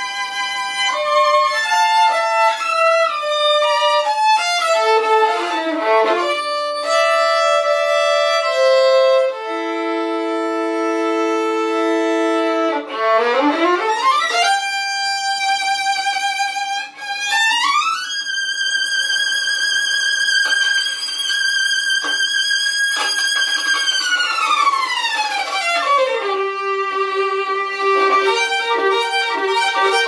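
Solo violin played with the bow: quick falling runs, then two notes sounded together, then a long slow slide up to a high note held with vibrato. A long slide back down follows, with more upward slides near the end.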